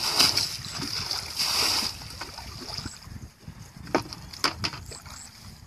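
Muddy ditch water being bailed out with a plastic bucket: two loud splashes as bucketfuls are flung out, then quieter sloshing with a couple of sharp knocks.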